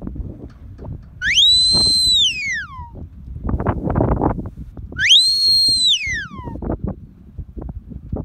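Sheepdog handler's whistle commands, given twice. Each whistle rises quickly to a high, steady note held for about a second, then falls away.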